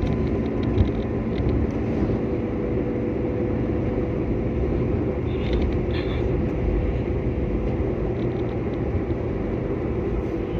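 Steady road and engine rumble heard from inside a moving car's cabin, with a faint steady hum and a brief knock about a second in.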